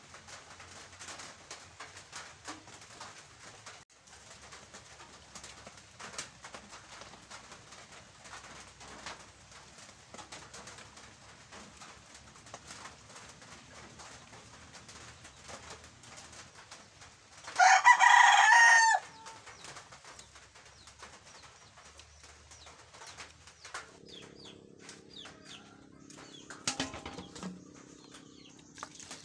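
A rooster crowing once, a single call of about a second and a half whose pitch drops at the end, over a faint background of small crackles and ticks.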